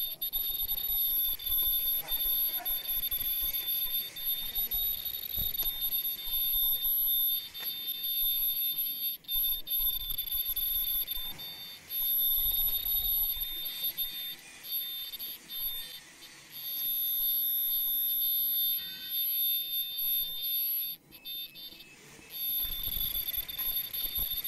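Disposable face-mask production machine running, with a steady high-pitched whine over the rattle of its rollers and gears; the whine dips briefly a few times.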